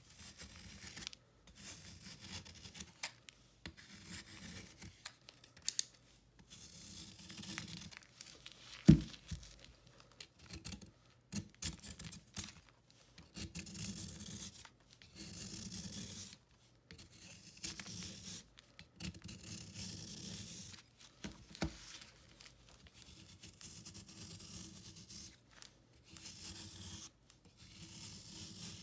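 Snap-off utility knife blade scraping and shaving a dried block of baking soda, chalk and calcium carbonate, in repeated crumbling strokes of a second or two each with short pauses between. One sharp snap about nine seconds in is the loudest moment.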